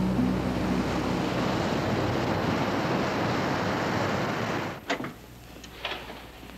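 Steady rush of ocean surf that stops abruptly about five seconds in, followed by a few faint knocks.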